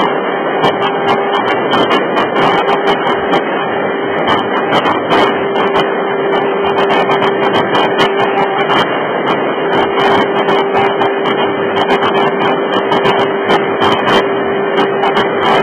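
A model aircraft's motor running steadily in flight, heard from an onboard camera: a constant hum under loud wind rush, with scattered crackling clicks.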